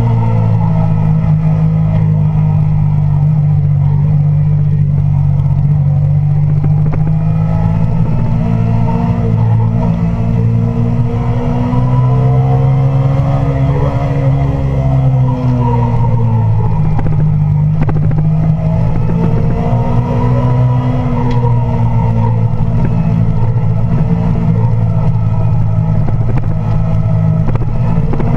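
Kawasaki Ninja 250's parallel-twin engine heard from on board, held at steady high revs with its pitch swelling and easing a few times with the throttle through the bends, over wind rush.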